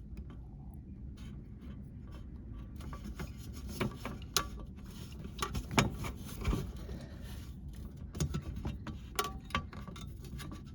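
Irregular clicks, taps and knocks of hands working on a dishwasher's drain hose and hose clamp, with the loudest knocks a little past the middle.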